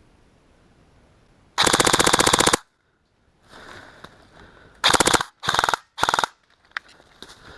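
Airsoft electric rifle firing on full auto: one burst of about a second, then three short bursts in quick succession, a rapid even rattle of shots.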